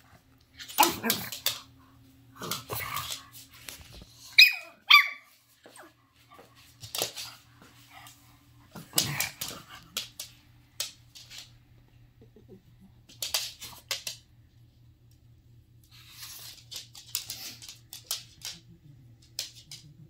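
A mini Australian Shepherd puppy and an older dog playing: two sharp high yips about four and five seconds in, among short scattered bark-like and scuffling sounds. A faint steady hum lies underneath.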